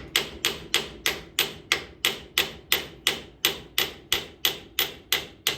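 Hammer tapping a tight-fitting part onto a Coleman truck axle: an even run of sharp, ringing taps at about three a second.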